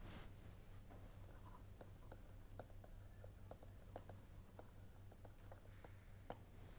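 Near silence: faint, irregular clicks and taps of a stylus writing on a pen tablet, over a low steady hum.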